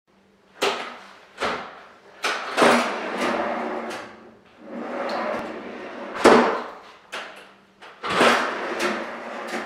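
Drawers of a Rosengrens Eurovertical fire-resistant filing cabinet being pulled open and pushed shut, the heavy drawers rumbling along their runners, with several sharp clunks as they catch and close.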